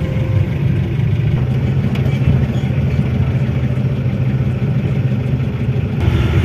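Car engine idling steadily in stop-and-go traffic, heard from inside the closed cabin as a low, even hum.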